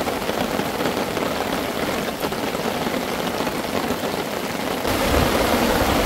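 Heavy rain pouring and pattering on a pitched silicone-coated tarp, blown sideways by wind. A low rumble joins about five seconds in.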